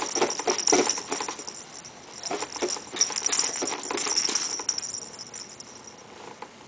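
Baby's soft cloth ball toy jingling and rattling as it is batted and kicked, with a run of light knocks and rustles. The jingling stops near the end.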